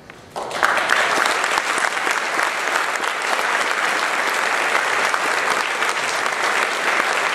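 Audience applauding, breaking out suddenly about half a second in and holding steady.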